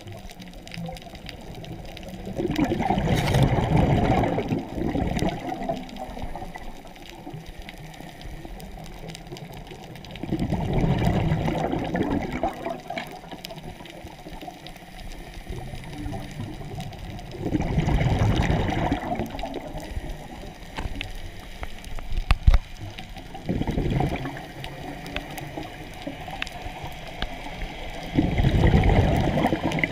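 Scuba diver's regulator exhaust bubbles heard underwater: about five loud bursts of bubbling, one with each exhalation, roughly every six or seven seconds, with a quieter hiss between breaths.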